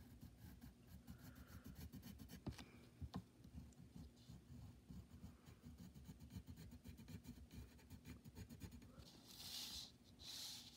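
Faint pencil scratching on paper as an outline is drawn, with a few light ticks. Two longer, louder strokes come near the end.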